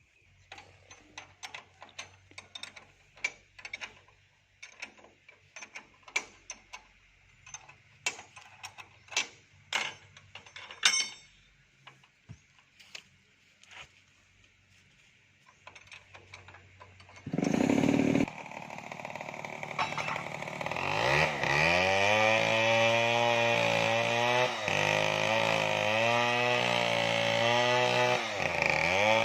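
Portable sawmill's engine-driven saw. For about 17 seconds there are scattered knocks and clicks over a faint low idle. Then the saw engine comes up loud and runs, its pitch dipping and recovering several times as the wood is sawn.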